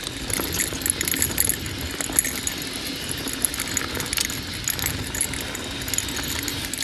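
Mountain bike descending fast, flowy dirt singletrack: a steady rush of wind and tyre noise with constant rattling and quick clicks from the bike's chain and parts.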